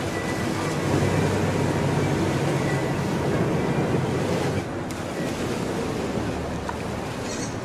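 Steady rushing wind noise on the microphone outdoors, with a slight dip in level about halfway through.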